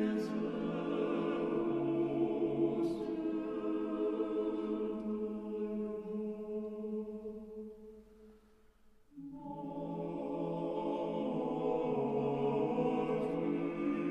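Choir singing a slow, sustained chant in long held chords. The phrase dies away about eight seconds in and a new one starts a second later.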